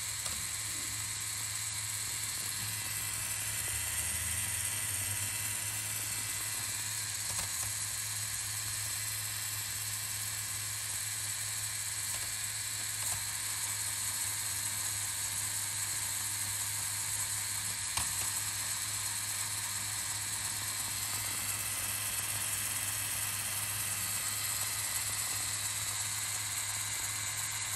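LEGO Power Functions motor whirring steadily as it turns the Technic gearbox and piston engine, with a few faint plastic clicks.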